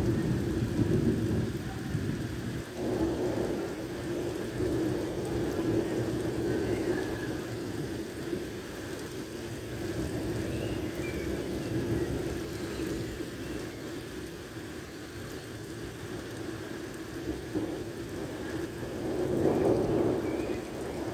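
Heavy rain pouring onto a flooded street during a thunderstorm, with thunder rumbling low under the steady hiss of the rain. The rumble swells louder near the end.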